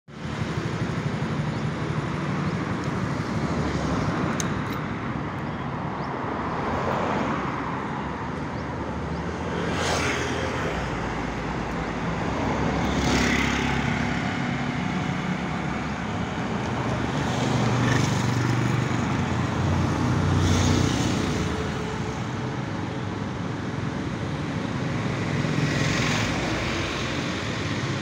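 Steady road traffic noise, with individual vehicles swelling past several times.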